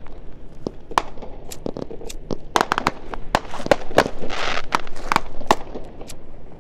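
Fireworks crackling and popping: many sharp, irregular cracks, with a short hiss about four seconds in.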